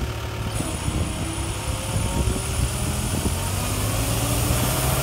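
JLG telehandler's diesel engine running steadily under load while its boom extends, with a few faint rising whines over the low engine hum.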